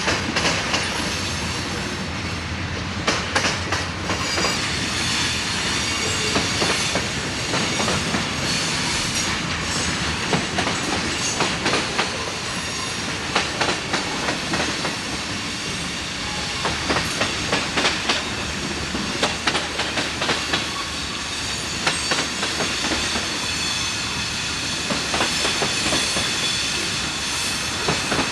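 Freight train cars rolling past at speed, steel wheels clicking irregularly over rail joints, with a thin high squeal from the wheels on the rails.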